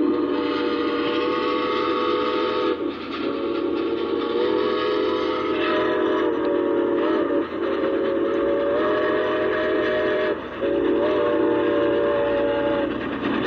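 Steam whistle of Chesapeake and Ohio J3a 4-8-4 No. 614 blowing a chord of several notes in four long blasts, each broken off briefly, over the steady running noise of the train. It is the locomotive's warning for a road crossing.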